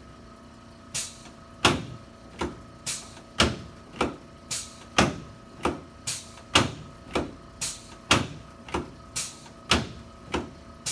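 A steady run of sharp mechanical clacks from chiropractic adjusting equipment, about two a second, every other one a little louder.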